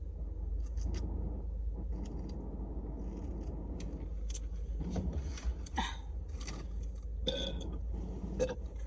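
Eating and handling food packaging, with scattered clicks and rustles over a low steady rumble, and a short burp about five seconds in.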